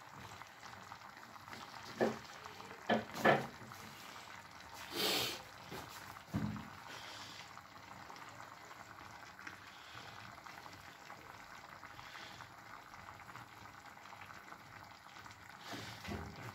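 Vegetable tagine in a clay tagine dish simmering faintly on the burner, a steady low hiss. A few sharp knocks come about two to three seconds in, the loudest sounds, and a brief scrape about five seconds in.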